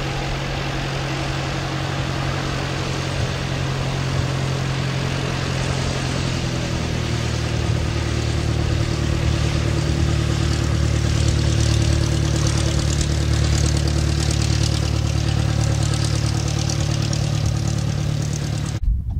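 Cessna 172 light aircraft's piston engine and propeller running at low taxi power, a steady engine note. About six seconds in the note changes and it grows louder through the middle as the plane passes close, then cuts off abruptly near the end.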